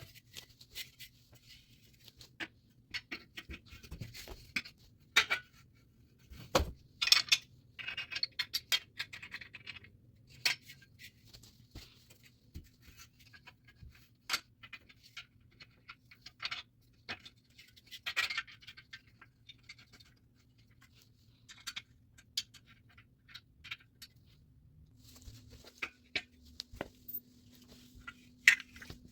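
Steel bed frame parts and hardware being handled during assembly: scattered clicks, light clinks and scrapes of metal, coming irregularly every second or so.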